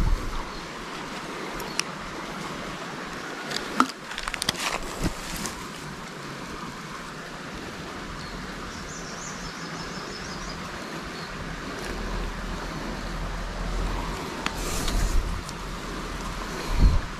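Steady outdoor riverbank ambience: a small river flowing with wind over the microphone, a few sharp clicks about four to five seconds in, and a short high chirping about nine seconds in.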